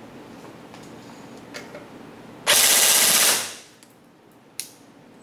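SRC SR5 airsoft electric gun (AEG) firing one short full-auto burst of just under a second, its Generation 2 gearbox cycling rapidly in a rate-of-fire test. A single sharp click follows about a second later.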